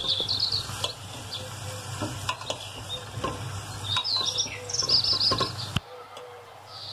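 A metal spoon stirring boiled potatoes in hot spiced oil in a steel pot, scraping and knocking against the pot while the oil sizzles. Birds chirp in two short spells, the second about four seconds in.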